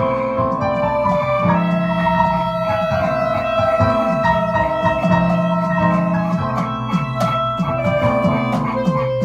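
Small amateur band playing a jazz-fusion tune: two clarinets hold long sustained melody notes over keyboard chords, with steady electronic drum kit hits.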